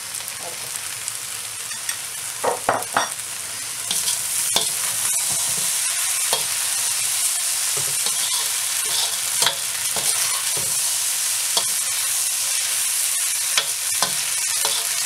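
Pad thai rice noodles sizzling in a hot wok while a metal spatula stirs and tosses them, scraping and clicking against the pan. The sizzle gets louder about four seconds in.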